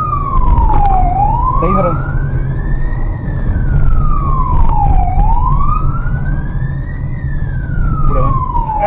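Police car siren in a slow wail, rising and falling about every four seconds, heard from inside the pursuing car over a steady engine and road rumble.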